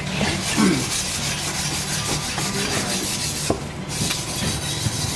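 Large knife sawing and scraping through scaly barracuda skin and flesh on a wooden chopping block, a rasping rub with a few light knocks of the blade on the wood.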